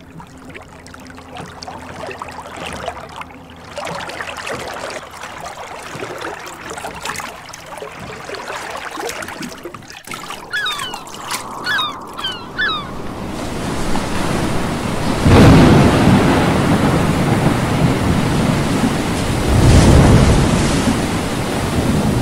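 Soft sea ambience, then a seagull calling in a short series of cries about halfway through, followed by loud storm surf and wind that build up and swell in heavy surges.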